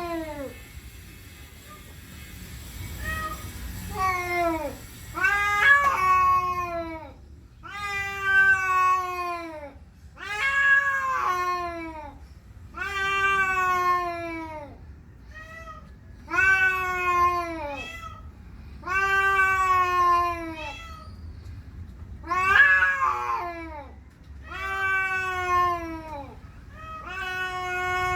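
Domestic cat yowling in a long series of drawn-out calls, one every two to three seconds, each sliding down in pitch. It is territorial caterwauling, aggression at a rival cat.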